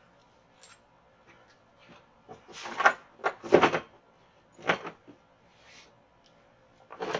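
Gear being packed into a large plastic rolling tool chest: a few knocks and clatters of things set down in the plastic box, the loudest about three to four seconds in.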